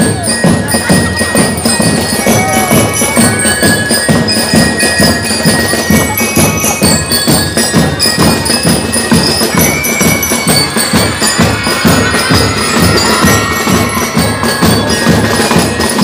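A marching drum-and-lyre corps playing: drums keep a steady marching beat under a ringing bell-lyre melody.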